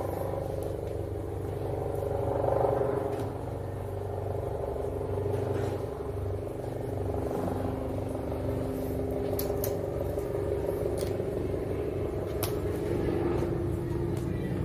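Steady low hum of a running engine or motor, holding several constant tones, with a few faint light clicks of handling near the end.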